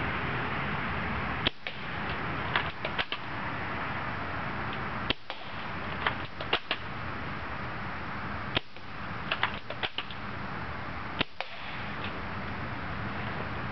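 UTG MK96 spring-powered airsoft sniper rifle firing four times, about three and a half seconds apart. Each shot is followed by a few quick clicks of the bolt being cycled, over a steady background hiss.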